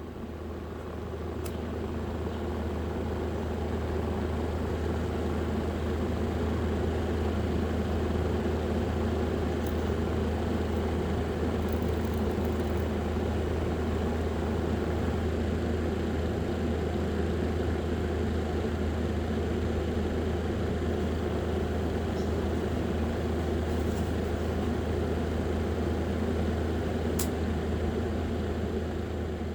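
A small motor running with a steady low hum, fading in over the first few seconds and out near the end, with a few faint clicks.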